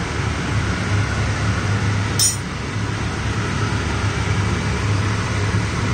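Steady low hum in a kitchen, with one short, sharp click about two seconds in as the oil bottle and spoon are handled over a non-stick wok.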